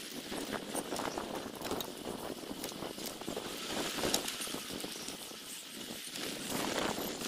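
Bicycle rolling along a paved path, with a steady clatter of small rattles and knocks from the bike as it goes.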